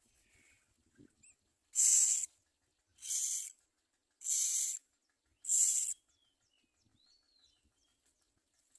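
Common myna nestlings giving raspy, hissing begging calls: four harsh bursts about a second apart. These are followed by a few faint high chirps and a short whistled note.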